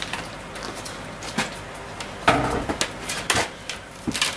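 Handling noises at a workbench: scattered knocks and clicks, with a louder scuffing rustle about two and a half seconds in and sharp knocks a second later, as a bottle of white spirit and a cloth are handled.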